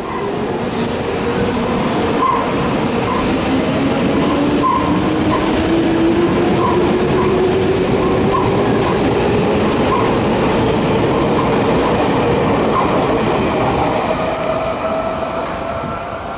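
Toei 10-000 series electric train pulling out of a station. Its traction motor whine rises slowly in pitch as it accelerates, over steady wheel and running noise.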